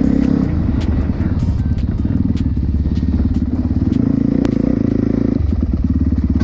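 Dirt bike engine running under load: the revs drop about half a second in, climb again toward five seconds, and fall sharply just after five. A few sharp clicks sound over the engine.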